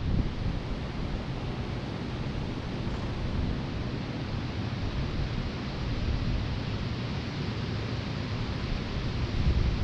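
A long row of electric box and pedestal fans running together, giving a steady rushing of air, with wind rumbling on the microphone that grows stronger near the end.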